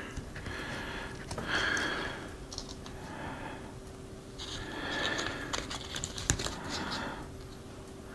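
Small plastic clicks and taps as Flow Hive frame cell pieces are fitted and pressed together by hand, with a sharper click about six seconds in. Close breathing between the clicks.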